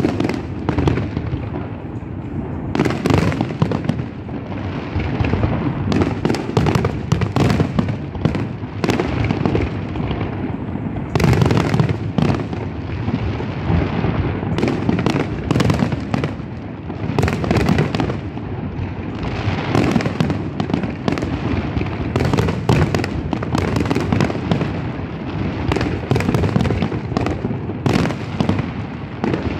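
Fireworks display: aerial shells bursting in rapid succession, the bangs overlapping into a continuous barrage, with louder volleys every few seconds.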